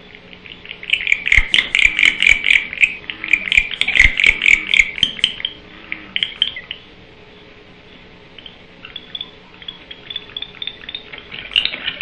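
Barn owls at the nest box giving rapid, high chittering calls, loud for about six seconds with a couple of knocks among them. Fainter calls of the same kind return near the end.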